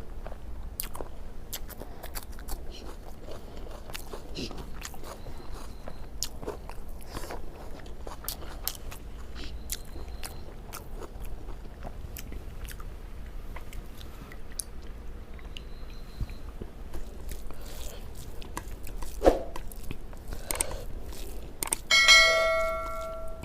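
Close-up eating sounds of a person chewing rice, egg curry and fish, with many small wet mouth clicks and smacks. Near the end a metal dish is struck once and rings for about a second.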